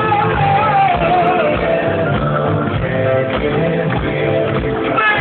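Live rock music: a singer's voice carries a wavering melody over electric guitar and a full band, loud and steady. The high end is cut off, as in a camera recording.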